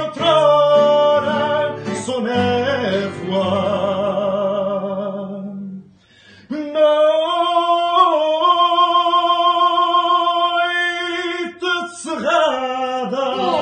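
A man singing fado, drawing out long notes with vibrato. After a short break about six seconds in, he holds one long note for about five seconds as the song closes.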